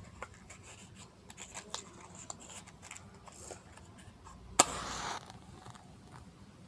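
Small clicks and scrapes of a matchbox being handled. About four and a half seconds in, a match is struck with a sharp scratch and flares with a short hiss of about half a second.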